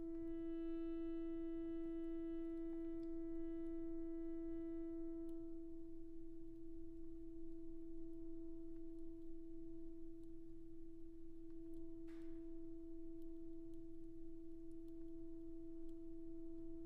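Chromatic button accordion holding one long, soft note. Its upper overtones thin away after about five seconds, leaving a nearly pure tone, with a brief breathy hiss about twelve seconds in.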